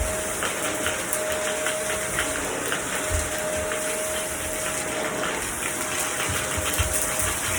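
Vacuum cleaner running steadily: a rushing airflow with a steady motor whine, and a few low bumps.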